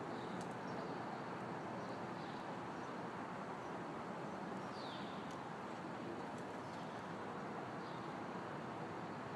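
Steady outdoor background noise with a few faint, short, high bird chirps scattered through it, one of them a falling chirp about five seconds in.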